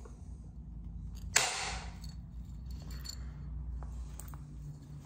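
A stone abrader scraped once along the edge of a heat-treated chert blade about a second and a half in, a short gritty rasp starting with a sharp click, followed by a few faint light ticks of stone on stone.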